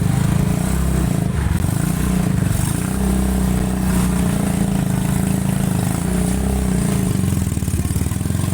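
A small engine, like a motorcycle's, running steadily nearby, with a low, even flutter.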